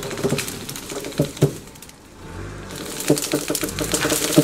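Thorny hedge branches cracking, snapping and rustling as the shrub is dragged out by its base: an irregular string of sharp cracks and crackles, with a quieter gap about halfway through.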